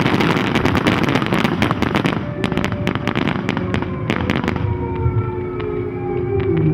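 Fireworks going off, a dense crackle of many small reports that thins after about two seconds into separate sharp pops. In the second half, several sustained tones join in and slide slowly down in pitch.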